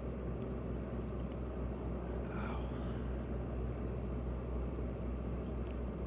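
Outdoor background: a steady low rumble, with faint high chirps here and there.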